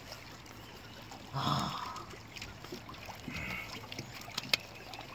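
Quiet water lapping against the hull of a drifting aluminum boat. There is a brief louder muffled sound about a second and a half in, and a single sharp click near the end.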